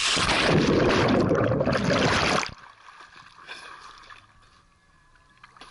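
A person jumping into a swimming pool: a splash and loud rushing, churning water for about two and a half seconds, cutting off sharply, then quieter sloshing of the pool water.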